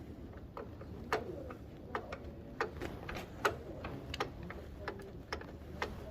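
Irregular sharp clicks and metallic taps, a few each second, from hand tools working on a motorcycle footpeg mount.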